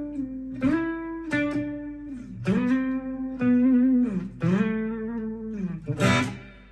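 Electric guitar played through GarageBand's Amp Designer Studio Amp model, a single-note lead phrase with several string bends up and back down, ending in a short bright strum near the end. The cabinet model is being auditioned for tone.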